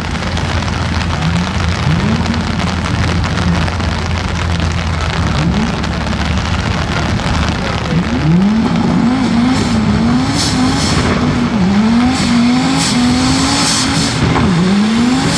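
Car engine revving hard over a loud steady rush. In the second half the engine is blipped up and down over and over in quick rises and falls, as in a burnout.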